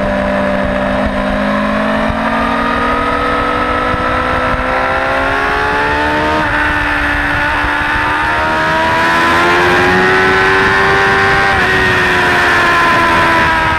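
Suzuki GSX-R600 K4's inline-four engine pulling hard through the gears, its pitch climbing, stepping down at an upshift about halfway through, climbing again, then falling as the throttle eases near the end. Wind rush at speed sounds under it.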